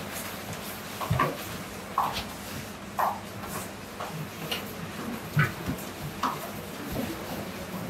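Kitchen workroom sounds: irregular short knocks and clinks of dough-rolling and utensils, about one a second, over a faint steady hum.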